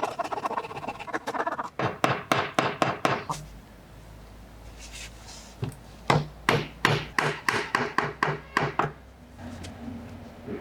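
Two runs of rapid, evenly spaced knocks on wood, about four or five strikes a second: one about two seconds in, the other from about six to nine seconds in.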